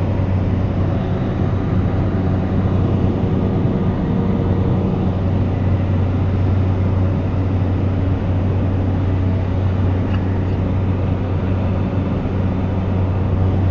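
Small airplane's engine running with a steady, unchanging low drone.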